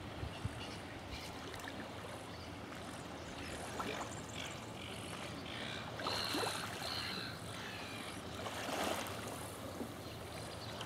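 Waterside ambience: light wind on the microphone over gentle lapping of calm water, with a short high two-part call about six seconds in.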